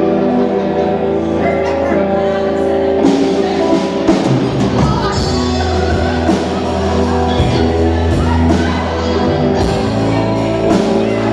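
Live rock band playing, electric guitar held on sustained notes at first, then drums and bass coming in with a steady beat about three to four seconds in.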